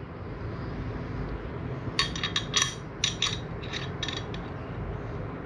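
Small metal screws clinking against each other as they are handled: a quick run of light metallic clinks starting about two seconds in, with a few more a little later.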